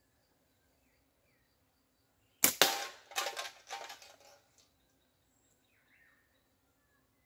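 A slingshot shot at a beer can target: two sharp cracks in quick succession, about two and a half seconds in, the release of the doubled Theraband bands and the 7 mm steel ball striking the can, followed by a rattling clatter that dies away over about two seconds.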